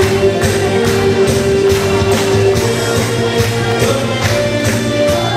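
Upbeat Korean trot song playing through a PA in an instrumental stretch, with a steady beat of about two strokes a second. A long held note ends about halfway through.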